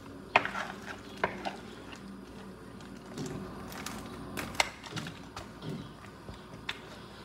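Kitchen utensils clicking and knocking against cookware, a handful of short sharp knocks spread out, with faint background voices.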